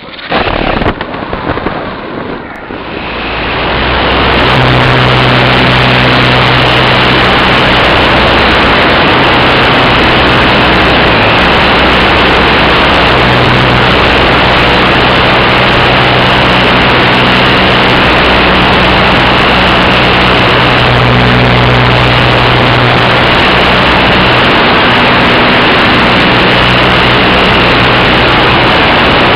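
Loud, steady rushing drone of an electric RC glider in flight, picked up by its onboard camera: air noise over the microphone with a low hum, building up over the first four seconds or so.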